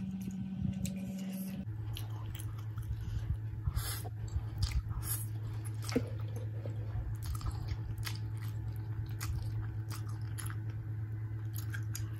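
Close-up eating of a forkful of fried instant noodles: slurping and chewing with wet mouth clicks and fork taps. Underneath runs a steady low hum that drops in pitch about two seconds in.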